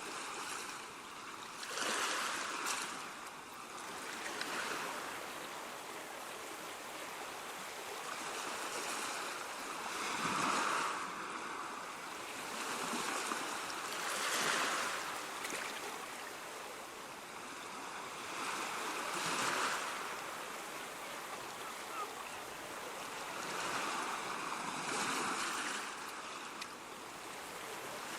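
Ocean waves breaking and washing on the shore: a continuous hiss of surf that swells and ebbs as each wave comes in, every few seconds.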